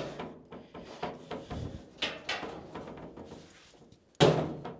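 Sheet-metal dryer panel being handled and fitted back into place: irregular scrapes and light knocks, then a loud metallic clunk a little after four seconds.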